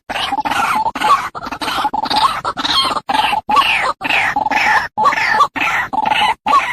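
White-breasted waterhen calling: a rapid series of harsh croaking notes, about three a second, broken now and then by short silences.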